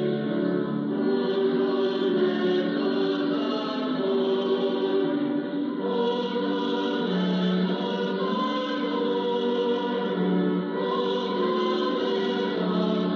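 Choir singing a hymn in sustained, held chords, received off air on a longwave AM broadcast through a Yaesu FRG-8800 communications receiver, with the narrow, slightly muffled sound of AM radio.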